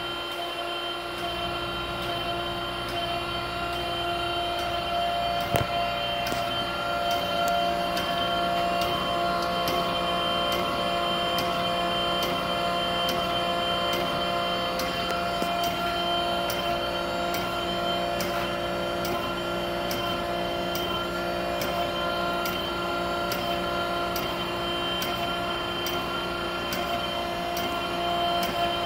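Okamoto ACC 8-20 DX automatic surface grinder running: a steady motor hum with several constant tones, and a light, regular ticking from about five seconds in.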